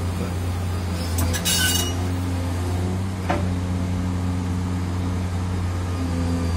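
Liebherr 944 crawler excavator's diesel engine running with a steady low drone while the bucket digs into rocky soil, its teeth scraping and clinking on stone about a second and a half in, with a sharp click about three seconds in.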